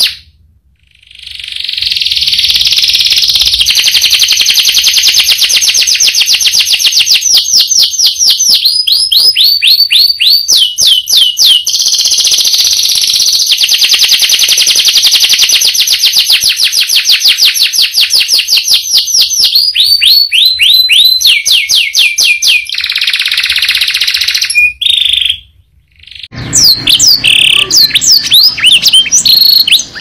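Domestic canary singing a long rolling song: very fast high trills that switch every few seconds between buzzing rolls and quick runs of repeated falling notes, with a short break about a second in. Near the end, after a brief silence, another canary starts singing in choppier phrases over some background noise.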